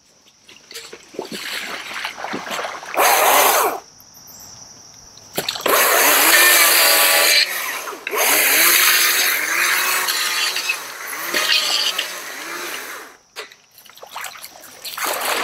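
Gas chainsaw starting up and running, revving up and down repeatedly as it is brought to an overhanging branch, and dropping out briefly near the end before running again.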